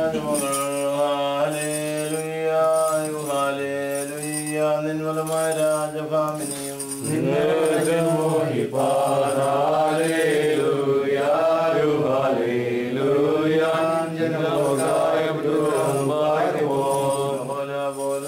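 Orthodox liturgical chanting: a man sings a prayer in long held, slowly gliding notes, and more voices join in about seven seconds in. The small bells of a swung censer chink faintly throughout.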